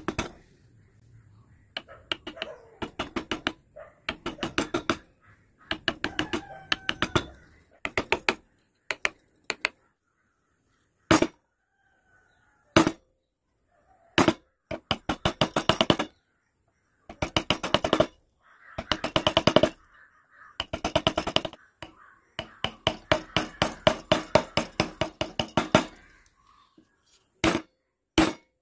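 Rapid sharp taps in bursts of one to three seconds with short pauses between: a wood-carving chisel being struck to cut into wood.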